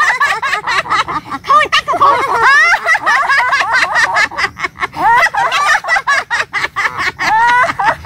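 Several women laughing heartily together, their voices swooping up and down, as a deliberate laughter-therapy exercise.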